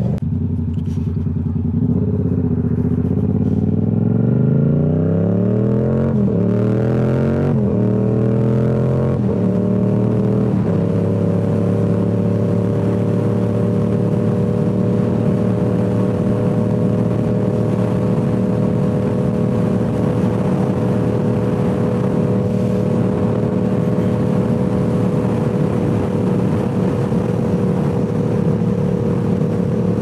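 Yamaha R7's parallel-twin engine through a Toce full-system exhaust, accelerating hard: the pitch rises and drops back at about four quick upshifts in the first ten seconds. It then runs at a steady, even pitch at cruising speed.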